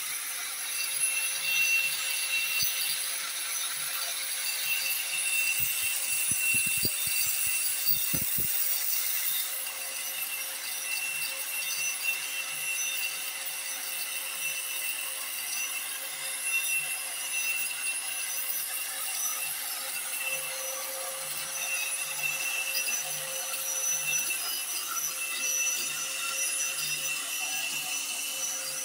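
Lure duplicating machine's rotary cutter carving a wooden lure blank: a steady motor whine with continuous rasping of the bit cutting wood.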